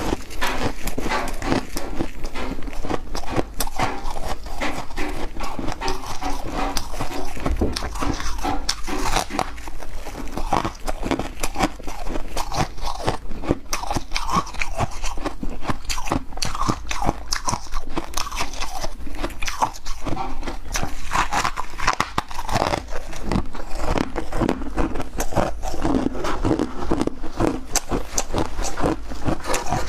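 Ice and frost being crunched and chewed in the mouth: a dense, continuous run of crisp crunches with no pause.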